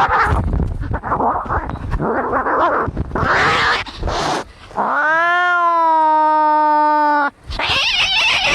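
Angry cats fighting: harsh, rough snarling and hissing, then one long steady yowl about five seconds in that lasts over two seconds, then more harsh snarling.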